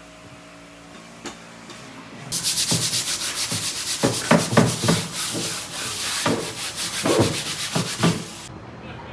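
A white plastic cutting board being scrubbed by hand in rapid back-and-forth strokes, giving a harsh rasping sound. It starts about two seconds in and stops abruptly near the end.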